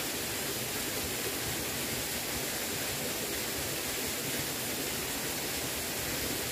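Steady, even rushing noise with no pitch or rhythm, holding one level throughout.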